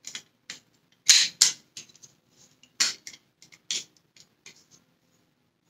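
Hard plastic parts of a Dyson Cinetic Big Ball vacuum cleaner clicking and knocking together as they are handled and fitted by hand during reassembly. The clicks come irregularly, a few louder ones about a second in and near three seconds.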